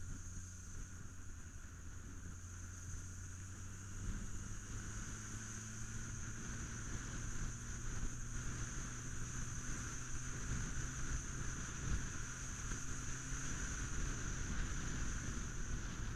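Road noise on a moving ride in traffic: a steady engine hum with wind on the microphone. About four seconds in, the engine note rises and the sound grows louder, as with acceleration.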